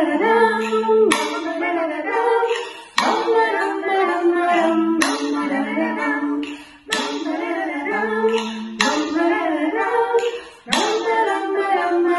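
Women singing a children's song together, in short melodic phrases of about two seconds each, every one starting sharply after a brief break.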